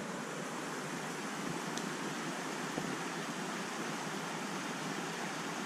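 Steady rush of a flowing forest creek, with a few faint ticks.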